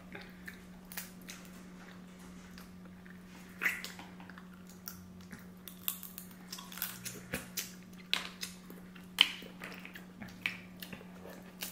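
Close-miked eating sounds: quiet chewing with scattered clicks and crackles from chopsticks and crab shells, over a faint steady hum.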